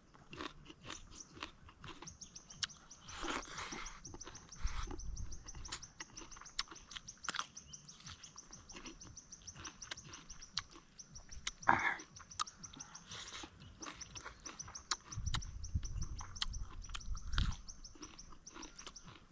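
Close-up chewing and crunching of buffalo ribs, heard as many short wet clicks. A rapid, high-pitched chirping trill runs steadily behind it, and low rumbles come in briefly twice.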